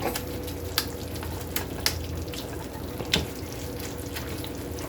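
Ground beef and pork chorizo sizzling in a frying pan as they are stirred together, with a few sharp clicks of the utensil against the pan.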